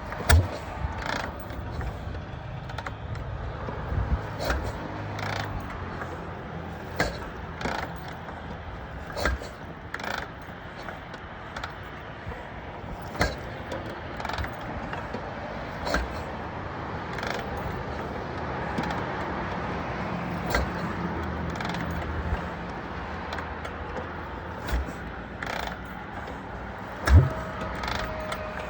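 Harley-Davidson Shovelhead V-twin being kickstarted over and over without starting: metallic clanks from the kick pedal every second or two, with the loudest thump near the end.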